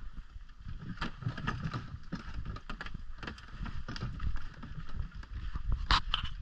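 Loaded canoe being wheeled on a portage cart along a dirt trail, its hull and gear knocking and rattling irregularly over the bumps above a low rumble, with one louder knock near the end.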